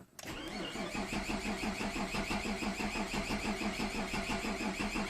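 Mazda 626 engine cranking on its starter motor, an even, rhythmic churn of several compression strokes a second that never catches and fires. The cause is no spark at the plugs, which the owner finds after the alternator overcharged.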